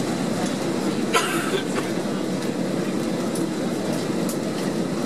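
Steady cabin noise of a Boeing 767-300ER in flight: the even rush of airflow and engines heard from a passenger seat. A brief clatter sounds about a second in.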